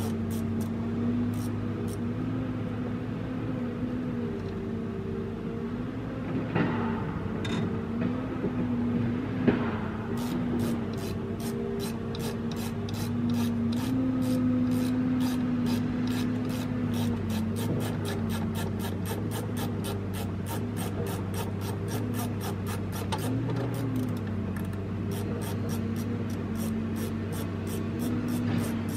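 The engine of the machine carrying the grapple saw runs steadily, its pitch wavering slightly. A few sharp knocks come between about six and ten seconds in, and after that a fast, even clicking of about three a second goes on.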